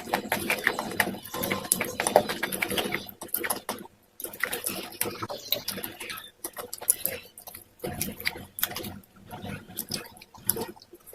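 Close-up crunching and chewing of white grooved slate pencils with a thick paste: quick irregular sharp crunches mixed with wet mouth sounds, dropping out briefly about four and six seconds in.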